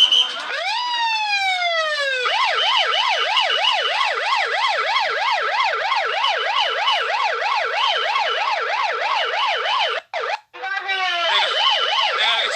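Police car siren: one slow wail that rises and falls, then a rapid yelp sweeping up and down a few times a second. It cuts out for a moment near the end, then winds back up into the yelp.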